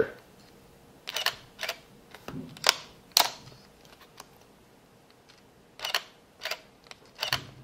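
Nikon D3100 DSLR shutter and mirror firing in quiet shutter mode: several short sharp clicks in two groups, about a second in and again near the end. The quiet mode sounds not really that much different from the regular shutter.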